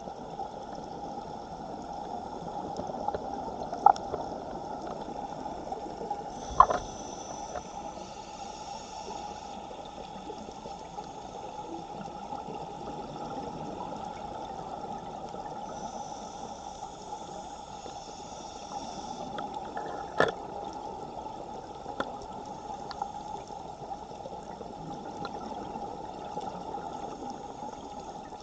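Underwater sound of a scuba dive in strong current: a steady muffled rush of moving water. Now and then a diver's exhaust bubbles gurgle for a couple of seconds, and a few sharp clicks sound, the loudest about a third of the way in and again about two-thirds in.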